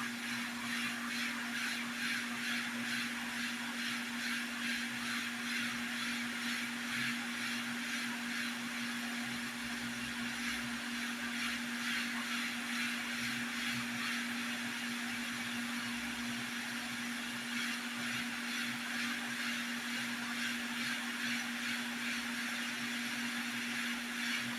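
Hot-air rework station blowing steadily: an even rush of air with a constant hum from its fan. It is heating the board to reflow solder under a new WiFi antenna connector.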